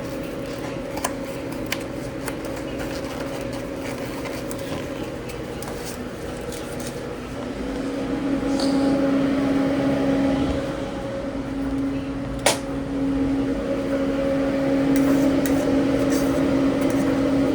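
Steady hum of kitchen equipment with a clear tone, growing louder about halfway through, with one sharp click near the two-thirds mark and a few light clicks and knocks.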